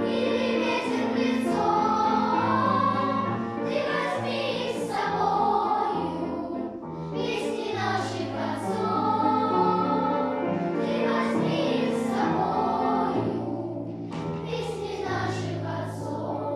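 Music: a choir singing a slow song with long held notes and some vibrato.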